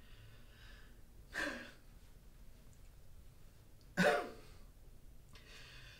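A man's heavy breathing with two short, sharp vocal outbursts, one about a second and a half in and a louder one about four seconds in: acted gasps of distress.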